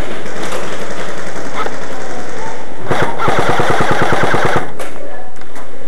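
Airsoft gun firing a fully automatic burst of rapid, evenly spaced shots, about a second and a half long, starting about halfway through. A few single cracks come before and after it.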